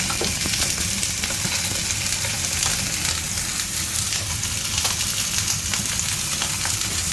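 Food frying in hot oil in a pan, a steady sizzle with small scattered clicks.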